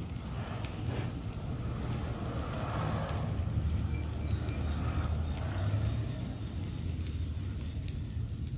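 Steady low rumble of riding along a brick-paved lane: bicycle tyres rolling over the paving blocks and wind on the microphone, with a faint rushing that swells and fades in the middle.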